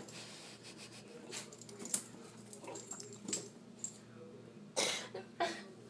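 Beagles excitedly begging and jumping, making a few short breathy dog sounds among scattered light clicks; the two loudest sounds come near the end.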